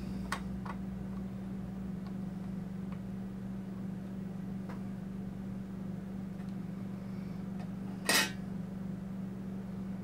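Faint clicks and light clinks of a laptop CPU and small laptop parts being handled, with one louder, brief scrape about eight seconds in, over a steady low hum.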